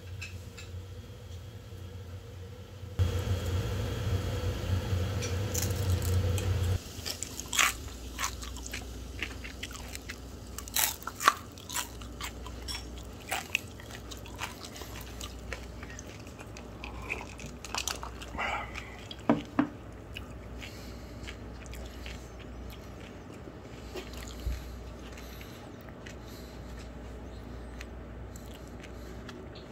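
A louder steady hum for about four seconds near the start. Then a run of scattered sharp clicks and crackles from ice cubes in a glass of iced cola being handled.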